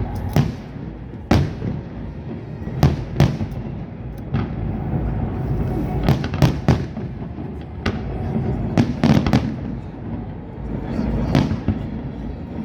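Aerial fireworks bursting in a display: a string of sharp bangs at irregular intervals, several coming in quick succession, over a steady low background noise.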